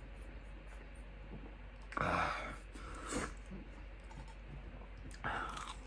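A man eating a Carolina Reaper hot chicken tender: quiet mouth clicks while chewing, with a loud breath out about two seconds in and two shorter ones later.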